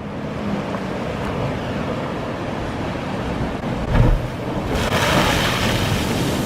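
Sea surf surging through a rock blowhole: a steady wash of water, a low thud about four seconds in, then a louder hissing rush of spray and water.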